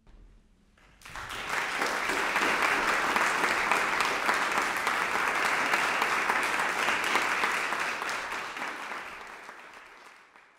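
Audience applauding after the last note of the piece, starting about a second in and fading out near the end.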